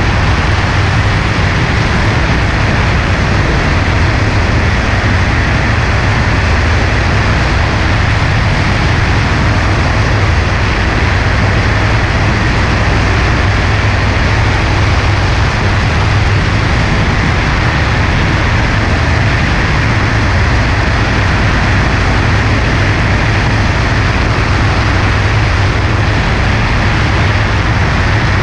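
Cessna 140A's piston engine and propeller running at a steady, unchanging drone in flight, under a constant rush of airflow over a wing-mounted camera.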